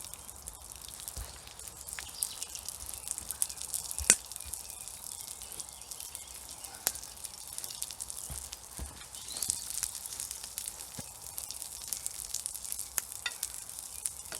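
Fiddleheads sizzling in oil in a frying pan over a campfire, a steady hiss with sharp pops and crackles scattered through it, the loudest about four seconds in.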